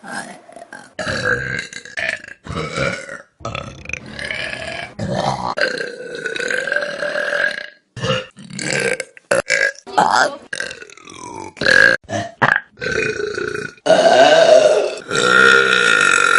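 A string of people's burps, one after another with abrupt cuts between them, some short and some drawn out, the longest and loudest near the end.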